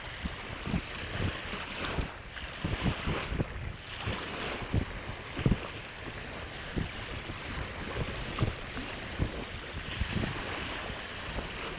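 Wind buffeting the microphone in irregular low thumps over a steady wash of small sea waves.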